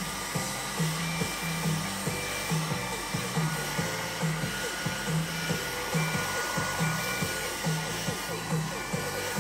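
Handheld hair dryer blowing steadily. Background music with a steady beat plays over it.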